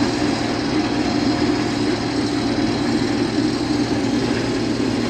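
Case IH combine harvester running steadily while cutting wheat, a constant engine and machinery drone with a steady low hum.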